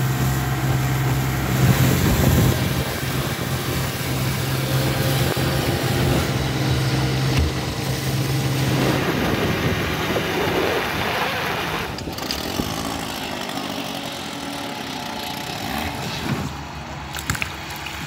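Antique outboard motors running at speed on small boats, a steady engine note over the rush of water and wind. The note changes about nine seconds in and breaks off sharply near twelve seconds as one boat gives way to another, and the sound is quieter toward the end.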